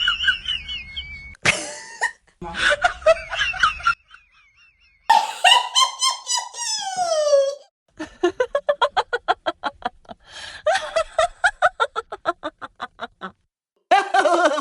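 A run of separate laughing sound-effect clips cut one after another: bursts of laughter, a long pitched call sliding downward in the middle, and quick rhythmic ha-ha laughing at about seven pulses a second near the end.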